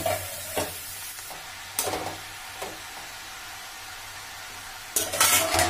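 Chopped cabbage and potatoes sizzling in oil in a metal kadhai while a spatula stirs and scrapes the pan in a few short strokes, with a louder burst of metal scraping and clatter near the end.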